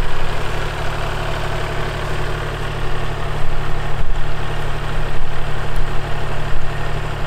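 Kubota compact tractor's diesel engine idling steadily.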